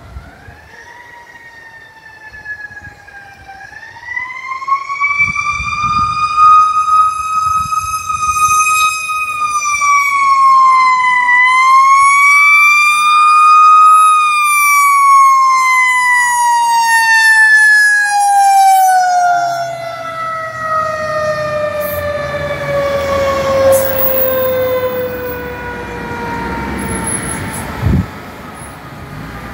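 A fire engine's Federal Q mechanical siren winds up to its peak, holds a high wail with a short dip and re-rise, then slowly winds down in a long falling whine. A short sharp knock sounds near the end.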